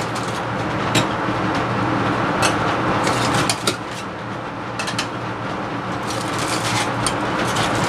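Laminar flow hood's blower fan running steadily with a low hum, with several sharp clicks and clinks of glass petri dishes being handled.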